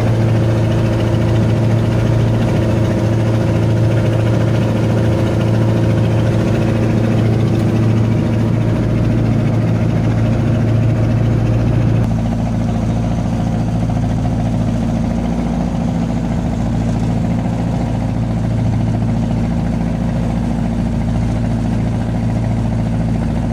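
Boat engine running steadily at a constant speed. About halfway through, it gets a little quieter and its tone shifts slightly, then holds steady again.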